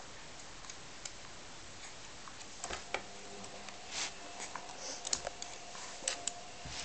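Irregular light plastic clicks and taps from a baby handling the toy bar of spinning plastic beads on a baby swing's tray, a few sharper clicks in the second half.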